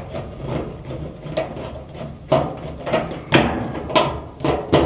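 A few sharp metal clicks and knocks, mostly in the second half, from the wires of a range power cord being fitted and fastened onto the screw terminals of an electric stove's terminal block.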